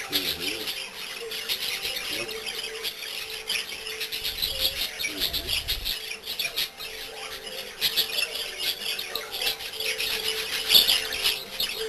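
Budgerigars chattering: a continuous, rapid stream of short chirps, clicks and squawks.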